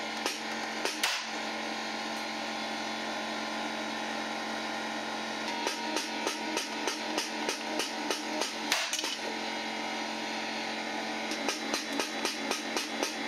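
Background music with a steady, tapping percussive beat over sustained tones.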